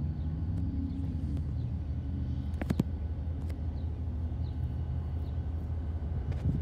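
Diesel locomotive engine running with a steady low rumble, and two sharp clicks close together about two and a half seconds in.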